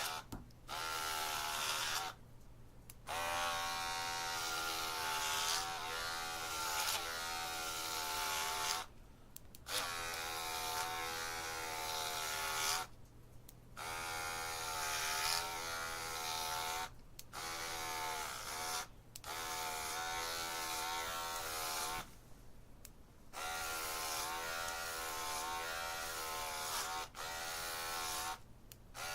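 Electric hair clippers buzzing, the pitch wavering slightly, in a series of runs broken by short silences several times.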